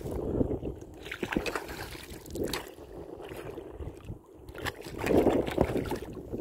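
A hooked pike eel thrashing and splashing at the water's surface beside a boat, in irregular splashes with short knocks, loudest about five seconds in.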